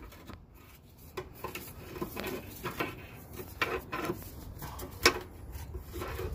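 Steel pry bar clinking and scraping against the rear track bar and its axle mount: a run of irregular metal knocks and scrapes, the sharpest about five seconds in.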